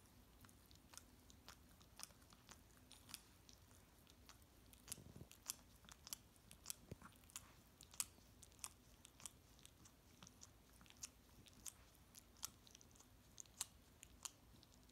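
Japanese Chin licking another dog's face and ear: faint, irregular wet smacking clicks, about two a second, over a faint steady hum.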